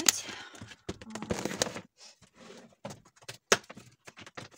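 Hands handling craft materials on a tabletop: rustling and crinkling with many light clicks and a few sharper knocks.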